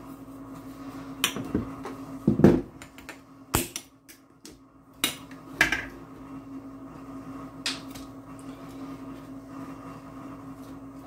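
Knocks and clicks of a glass clamp-lid jar being handled and opened, and a measuring spoon scooping brown sugar from it. The loudest knock comes about two and a half seconds in, and a steady low hum runs underneath.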